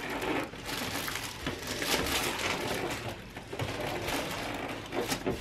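Plastic packing wrap around a new sewing machine crinkling and rustling as hands work at it inside its cardboard box. It comes on and off, with a brief lull a little after halfway.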